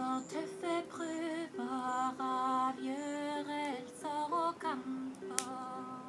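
A woman singing a slow, chant-like melody in held notes, accompanied by a strummed ukulele. A single sharp click sounds about five seconds in.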